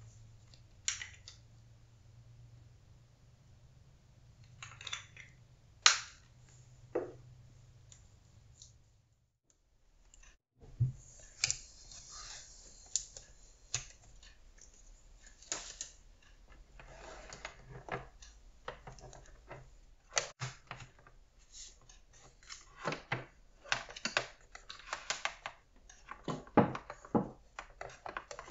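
Handling noise of small objects on a table. At first there are scattered taps and clicks over a low steady hum. After a brief drop to near silence about a third of the way in, a denser run of clicks, knocks and rustles follows as a Mac mini and its cables are picked up, set down and plugged in on a desk.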